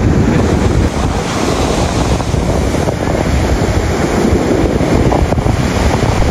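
Surf breaking on a sandy ocean beach, steady and loud, with wind buffeting the microphone.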